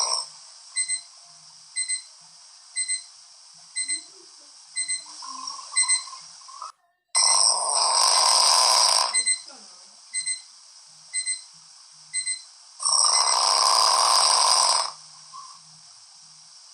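Electronic alarm clock beeping in quick pairs about once a second, while a sleeper snores: two long, loud noisy snores, one halfway through and one near the end.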